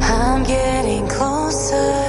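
Background pop music: a melody that slides up and down in pitch over held chords.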